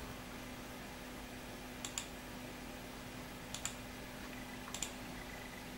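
Three clicks of a computer mouse button, about a second and a half apart starting about two seconds in, each a quick press-and-release double tick, over a faint steady hum.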